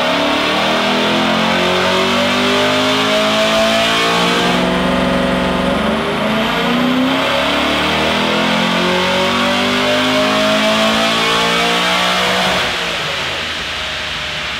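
Ford Falcon XR8's Boss 260 5.4-litre V8 revving hard under load on a chassis dyno during a power run. The pitch climbs, levels off briefly about four and a half seconds in, then climbs again until the throttle closes near the end and the revs fall away.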